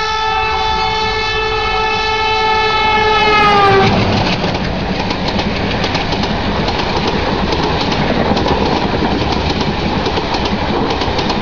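A train's horn held for nearly four seconds, its pitch sagging just before it stops. Then the train runs past with a steady rattle and clatter of wheels on the rail joints.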